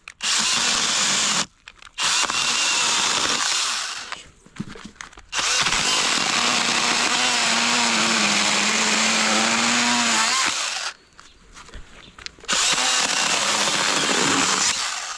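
Makita MUC101D 18V cordless handy chainsaw cutting a log in four runs of the trigger, with short pauses between. During the longest run, from about five to eleven seconds in, a low tone in the motor wavers as the chain works through the wood.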